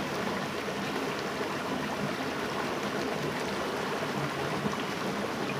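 Shallow stream rushing over rocks: a steady, even rush of running water.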